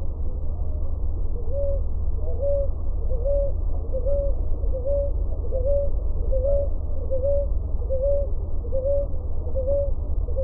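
Ruddy ground dove singing: a regular series of short coos, a little more than one a second, each sliding up briefly and then held, beginning about a second and a half in. A steady low rumble lies underneath.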